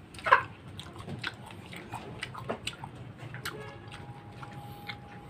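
A man chewing unripe soursop close to the microphone: wet smacking and clicking mouth sounds, with one loud wet mouth sound just after the start. The raw fruit is tough and chewy.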